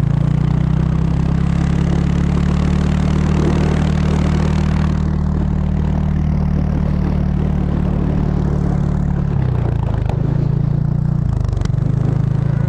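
A vehicle engine running steadily, its pitch dipping briefly twice near the end, with a rushing noise over it for the first few seconds.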